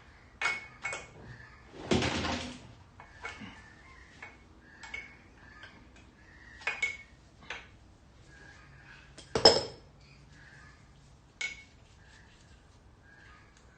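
Metal hand tools and engine parts clinking and knocking as a piston is worked out of an engine block: scattered sharp clinks, a short rattle about two seconds in, and one loud clank about nine and a half seconds in.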